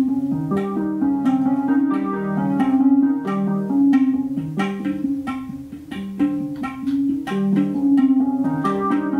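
Live instrumental music from a small group with an oud and a Roland Juno-6 synthesizer: a quick, repeating figure of short notes with sharp starts, several a second.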